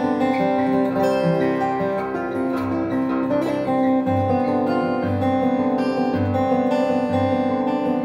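1994 Taylor 420-R steel-string acoustic guitar playing a solo instrumental: ringing notes over a low bass note that repeats roughly once a second in the second half.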